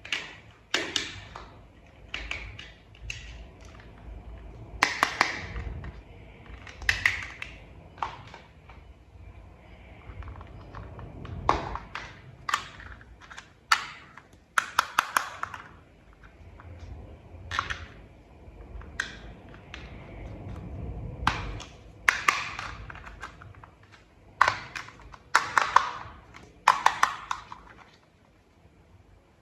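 Plastic toy vehicle parts being handled and pressed together: an irregular series of sharp clicks, taps and short rattles, a few every second or two.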